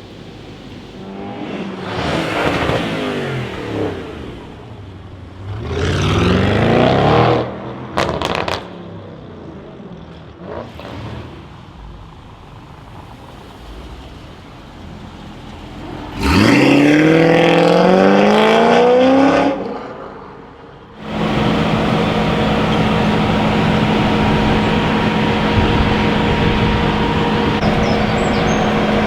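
Audi RS6 C7's twin-turbo V8 through a straight-piped Milltek exhaust, accelerating hard several times with rising pitch. The loudest run starts abruptly about two-thirds of the way in. A few sharp exhaust crackles come just after the second run. For the last part a steady, even drone with a fixed low hum takes over.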